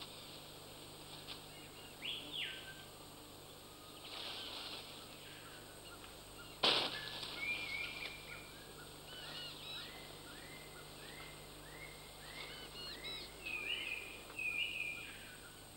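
Quiet rainforest canopy ambience: a single sharp crack about seven seconds in, then a bird calling a run of short repeated whistled notes, about two a second, rising to higher notes near the end.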